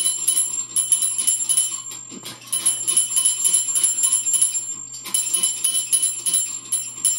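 Small metal bell on a child's ride-on toy fire truck, rung rapidly over and over at about seven dings a second, in runs with short breaks between them.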